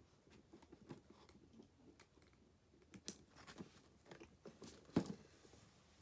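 Handbag and packaging being handled: scattered light clicks and rustles, with the sharpest click about five seconds in.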